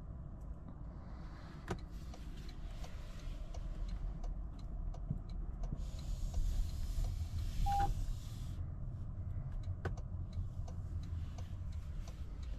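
Low steady rumble inside a Toyota Corolla Cross. In the middle, a hiss that starts and stops abruptly runs for about two and a half seconds, with a short beep near its end and a few scattered clicks.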